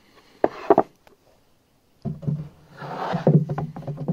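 Plywood boards scraping and knocking against the plywood walls of a subwoofer box's slot port as they are slid in by hand: a short scrape about half a second in, then a longer, rougher scrape with a low drone from about two seconds in.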